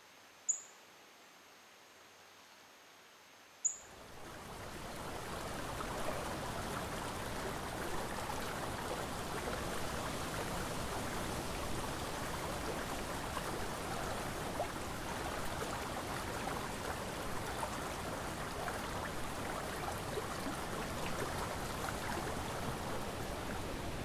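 Two brief, high bird chirps about three seconds apart over near stillness, then from about four seconds in the steady rush of flowing river water fades up and carries on.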